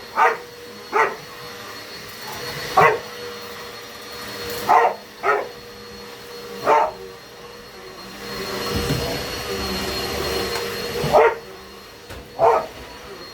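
A dog barking at a running vacuum cleaner: eight short, sharp barks, irregularly spaced, over the vacuum's steady hum, which gets louder and rumbles for a couple of seconds past the middle.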